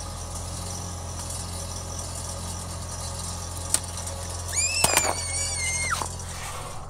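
Car engine idling with a steady low hum. A sharp click comes just under four seconds in. About four and a half seconds in there are two loud cracks and a high squeal lasting about a second and a half, which drops in pitch as it ends.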